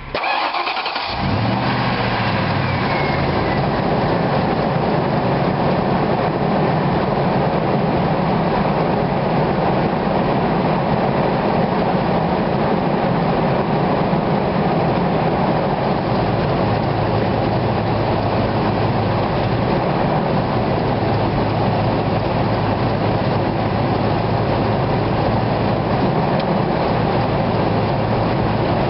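Ford F-150's 4.6L Triton V8, fitted with replacement exhaust manifolds, starting about a second in and then running steadily.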